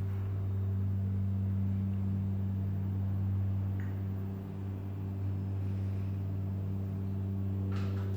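Otis 2000 hydraulic lift machinery humming steadily with a low drone as the car travels, with a brief scuffing sound near the end.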